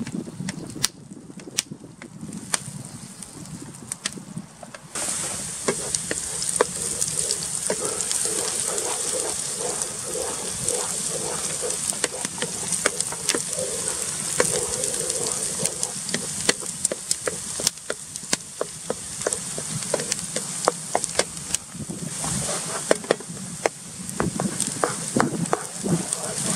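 Chopped onion sizzling in oil in a frying pan over a fire, stirred with a wooden spoon that scrapes and clicks against the pan. The steady sizzle starts suddenly about five seconds in.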